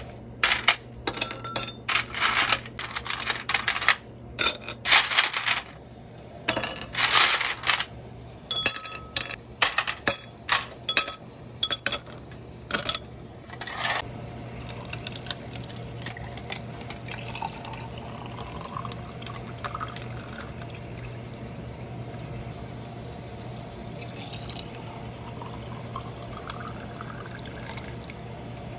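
Ice cubes dropped one after another into two glass tumblers, clinking sharply against the glass, for about the first half. Then water is poured over the ice in a steady stream, its pitch rising as the glasses fill.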